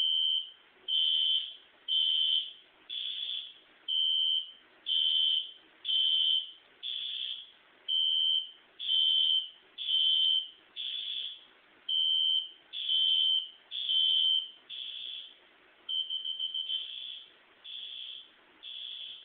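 A System Sensor fire alarm horn sounds in short high-pitched beeps about once a second, some louder than others and one stuttering near the end. It is running on a low supply of about 5 to 6 volts, well under its usual rating.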